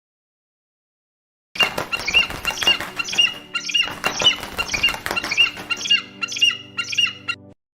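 A rapid series of high, squeaky animal calls, about two a second, starting after a second and a half of silence and stopping shortly before the end.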